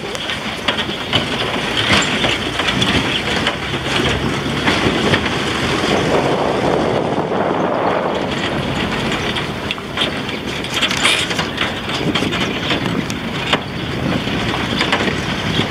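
Pickup truck driving on a rough dirt road: steady road noise with constant rattling and frequent knocks from the bumps.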